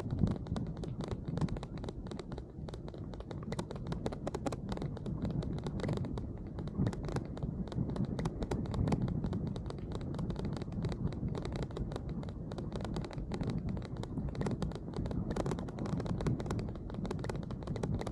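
A dense, rapid crackle of raindrops hitting a bike-mounted camera, over a low rumble from riding along a wet path.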